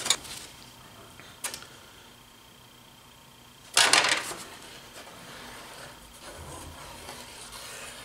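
Thin plywood sheets handled and a wood-glue bottle squeezed over the glued stack: a light tap at the start and another about a second and a half in, a brief louder scraping rustle near four seconds, then faint rubbing.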